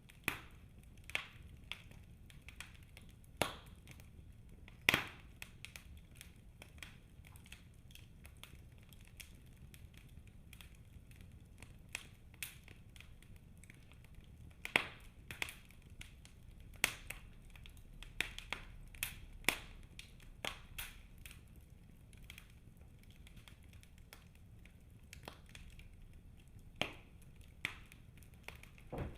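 Wood fire burning in a fireplace, crackling with irregular sharp pops over a faint low rumble; the loudest pops come about three and five seconds in and again around fifteen seconds.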